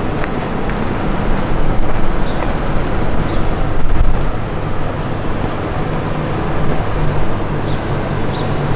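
Steady city street ambience: a low rumble of traffic with a constant low hum and faint, brief high chirps now and then.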